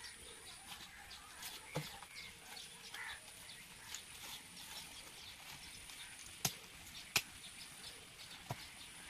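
A small hand tool digging into dry soil and leaf litter, with faint rustling and a few sharp knocks. The loudest two knocks come close together about six and a half and seven seconds in.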